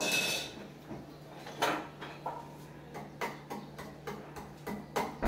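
A metal spoon clinking and scraping in a small bowl of hard date-palm jaggery, a scatter of sharp knocks and clicks over a steady low hum.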